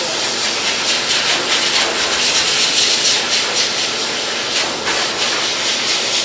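Dog grooming dryer blowing air through its hose: a steady, loud rushing hiss, run below full power. It grows a little brighter around the middle.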